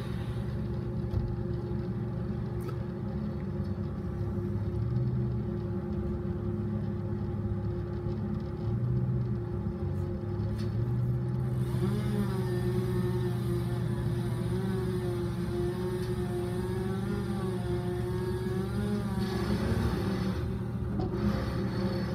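A truck engine running steadily at a low, even drone. From about twelve seconds in, a wavering higher-pitched engine tone rises and falls over it for several seconds.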